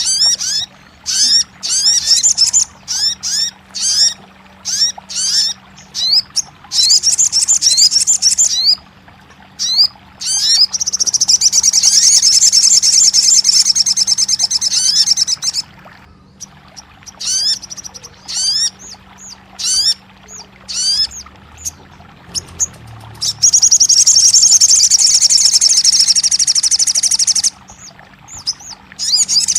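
Sogon (chestnut-backed scimitar babbler) song: a long run of short, quickly repeated rising chirps, broken twice by a loud fast trill lasting about four seconds, a little after ten seconds in and again about two-thirds through.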